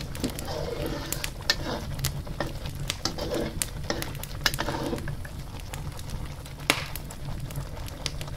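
Curry sauce with squid simmering in a wok: bubbles popping in sharp, irregular pops over a steady low hum.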